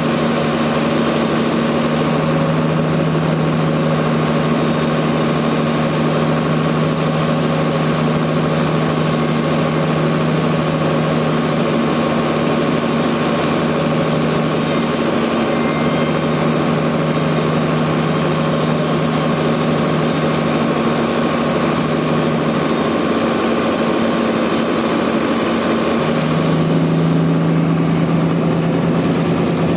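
Sawmill machinery running steadily with a loud low hum over a dense hiss. The hum wavers a little past two-thirds of the way through, then settles again.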